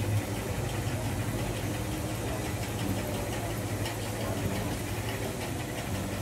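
Steady low hum of the gondola's drive machinery running, with faint light ticking over it.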